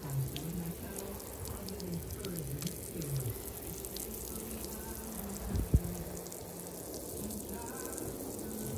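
Liquid sprinkling from the rose of a plastic watering can onto a synthetic rug, a steady hiss of falling drops; the liquid is a hydrogen-peroxide-based pet treatment for cat urine and its odor. A single sharp thump about halfway through.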